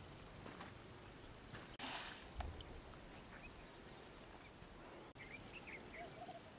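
Faint open-field ambience: a steady low hiss with a few short, faint bird chirps near the end. About two seconds in there is a brief rush of noise followed by a soft thump.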